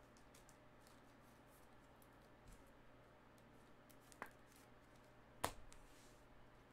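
Faint clicks and light taps of hands handling plastic top loaders and sleeved trading cards, with a sharper click about four seconds in and the loudest one about five and a half seconds in.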